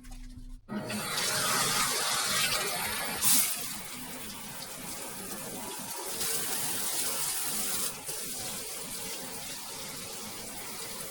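Water spraying from a newly installed Niagara shower head, turned on about a second in and then running steadily, with a brief louder surge a few seconds in. It is run as a test for leaks after the install.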